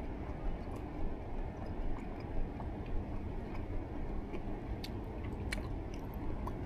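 A person chewing food close to the microphone, with small scattered clicks over a steady low rumble.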